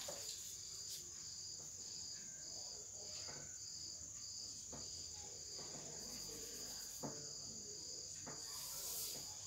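Crickets chirping: a steady high trill with a pulsing chirp about twice a second. Faint scratches of a marker writing on a whiteboard are heard a few times.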